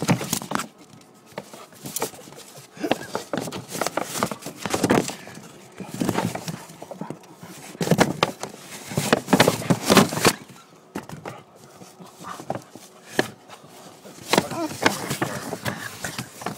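Great Dane puppy scuffling right against the microphone: irregular bursts of rustling, brushing and knocking noise, heaviest about halfway through.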